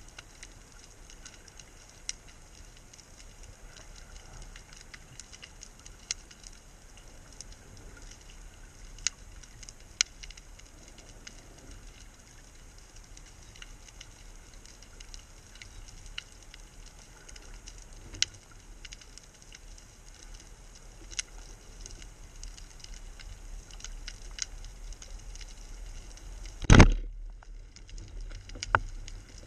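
Faint underwater crackle with scattered sharp clicks, then near the end a single loud crack as a wooden band speargun (Guépard 85) is fired, its rubber bands releasing the shaft.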